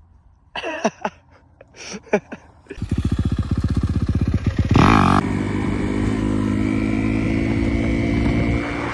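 Dirt bike engine: a few short sputters with falling pitch, then it catches and runs about three seconds in. It gets one quick rev near the middle and then keeps running steadily.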